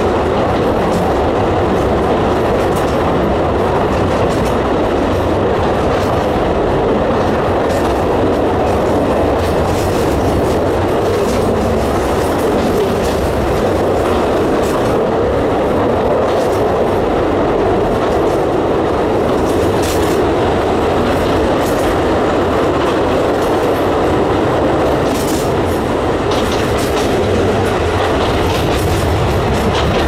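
Narrow-gauge Alishan Forest Railway train running through a tunnel, heard from inside a carriage: a loud, steady rumble of wheels on rail, echoing off the tunnel walls, with scattered clicks from the rail joints.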